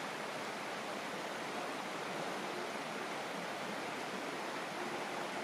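Steady rush of flowing creek water, an even hiss with no separate events.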